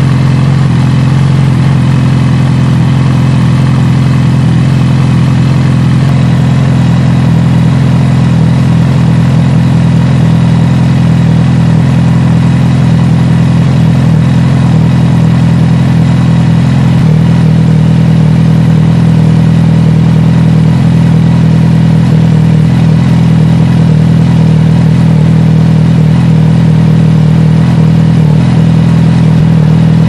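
Suzuki GSX-R1000's inline-four engine idling steadily.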